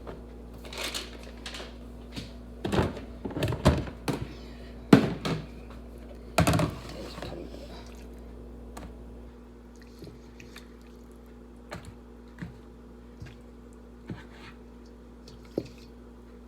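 Kitchen handling noises: a run of knocks and thuds over the first eight seconds, the loudest about five seconds in, then a few faint clicks.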